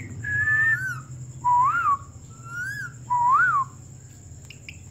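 A run of clear whistled notes: a level high note, then three notes that each rise and fall, about a second apart. They stop partway through.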